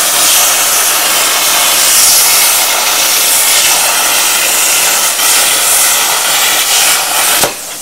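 40-amp plasma cutter with a P80 torch cutting steel plate on 100 PSI air: a loud, steady hiss of the air-plasma arc, which cuts off suddenly near the end. With full airflow it is making a clean cut.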